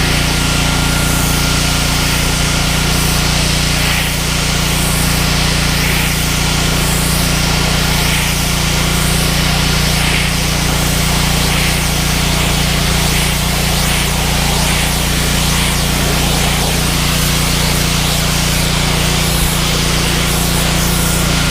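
Pressure washer running steadily, its wand spraying water hard onto wooden deck boards: a loud, even hiss of spray over the machine's steady engine hum.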